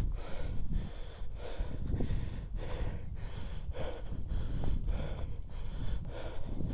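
Heavy, rhythmic breathing, a breath or gasp about every 0.6 s, over a low rumble.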